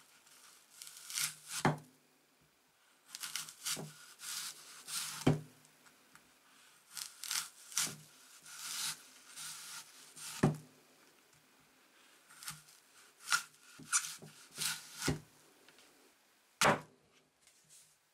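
Sharpened billhook blade slicing through a crisp apple, each cut a short crunching tear, with several sharp knocks as the blade comes through onto the wooden log block beneath.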